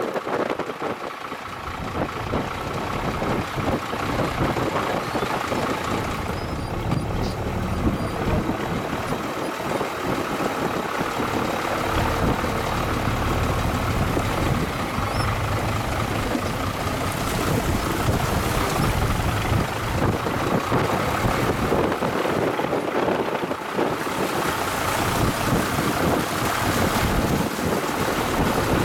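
Tractor engine running steadily as the tractor fords a muddy, fast-flowing river, with water rushing and splashing around its front tyre.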